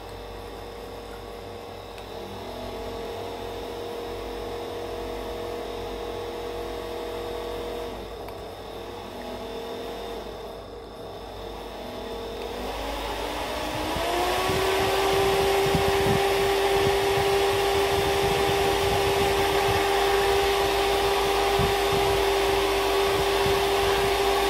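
Small electric motor of a restored rechargeable box fan running with a steady whine. A little past the middle its pitch rises as it speeds up, and the rush of air from the blades grows louder and then holds steady.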